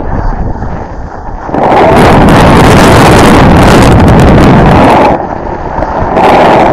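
Wind buffeting a wearable camera's microphone, loud and gusty, with a short lull at the start and another about five seconds in.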